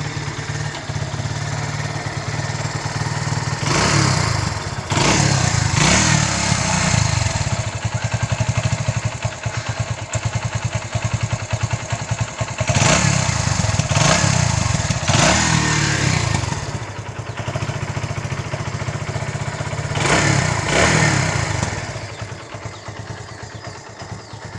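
Kawasaki W175's single-cylinder engine on its stock exhaust, idling and revved in about five short throttle blips, each rising and falling back to idle.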